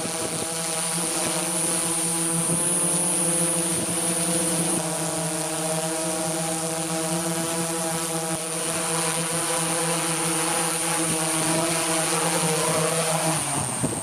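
DJI S900 hexacopter's six motors and propellers humming steadily as it hovers low, heard from the aircraft's own camera. The hum dies away just before the end as the copter sets down.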